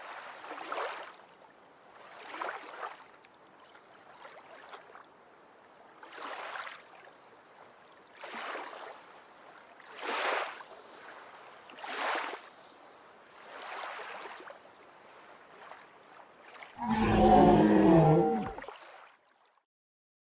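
Soft rushing swells of noise, about one every two seconds, then a loud roar with a wavering, falling pitch lasting about two seconds near the end.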